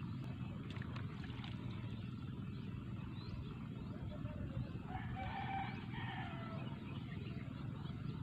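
A rooster crowing once, one long call about five seconds in, over a steady low background rumble.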